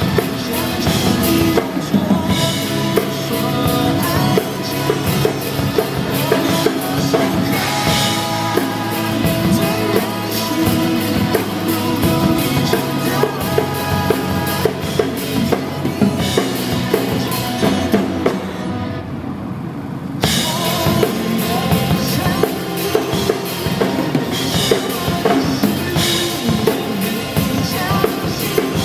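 Acoustic drum kit played live, with kick, snare, toms and cymbals, along to a pop backing track with held instrumental chords. A little past the middle the drums drop out for about two seconds, then come back in with a cymbal crash.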